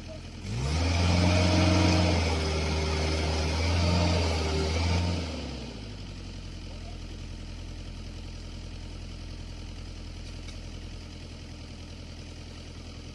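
Excavator engine idling, revving up sharply about half a second in and held at high revs for about five seconds, then dropping back to a steady idle.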